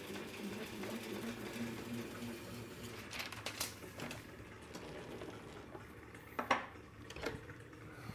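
Film rewinder whirring steadily as a reel of 35mm film spins, rewinding it. About three seconds in the whirring fades, and a few clicks and knocks follow as the reel is stopped by hand and taken off the spindle.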